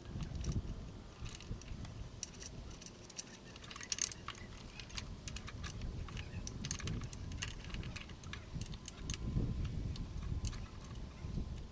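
Hand work on car parts: irregular light metallic clicks and rattles, with dull low bumps from handling.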